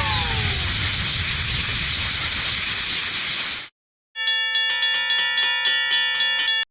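A loud, steady hiss, like rushing steam or static, that cuts off abruptly after about three and a half seconds. After a brief silence, a bright electronic bell-like tone repeats rapidly on fixed pitches, several dings a second, then stops abruptly.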